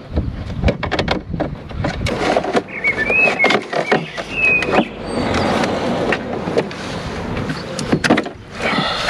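Small plastic clicks and knocks as an engine-bay wiring connector is handled, then a steady hiss of aerosol switch cleaner being sprayed onto the connector for about three seconds.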